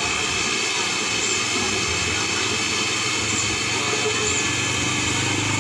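Electric countertop blender motor running steadily, blending a shake.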